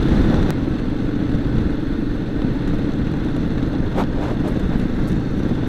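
Royal Enfield Himalayan's 411 cc single-cylinder engine running steadily at highway cruising speed, with wind noise on the microphone.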